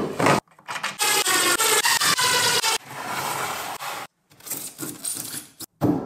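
Wooden hive-box panels and a plexiglass sheet being handled and slid together: scraping and rubbing of wood and plastic against each other. A loud scrape lasts about two seconds from a second in, followed by quieter rubbing, and the sound cuts off abruptly several times.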